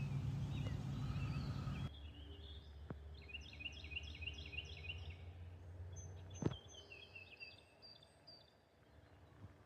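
Songbird singing outdoors: quick runs of short, high chirping notes, one phrase after another. A steady low hum cuts off about two seconds in, and there is a single sharp click midway.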